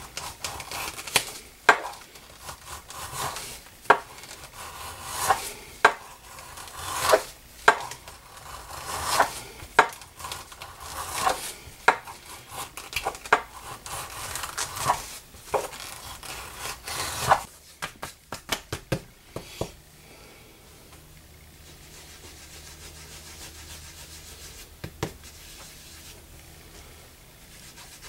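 A hand skiver shaving the edge of a vegetable-tanned leather disc: scraping strokes, roughly one a second, for about the first two-thirds. Then a quick run of light clicks, and after that only a faint low hum.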